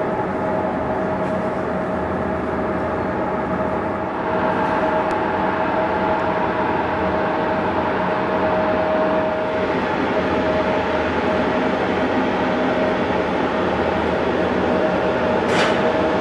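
Steady whine of aircraft turbine machinery on the apron, a held tone over a broad rumble, growing slightly louder about four seconds in. A brief high chirp comes near the end.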